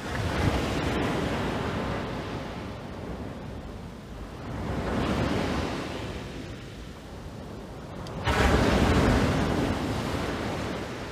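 Sea surf breaking on a sandy beach: three waves surge in and wash back about every four seconds, the third, a little past eight seconds in, the loudest. Wind buffets the microphone.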